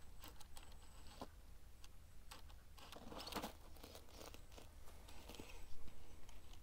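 RC rock crawler's tires crunching and scraping over sandstone and grit, with scattered small clicks as it crawls over the ledge.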